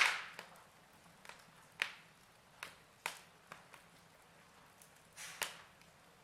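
Fire crackling: irregular sharp pops and snaps over a faint steady hiss, with the loudest pop right at the start.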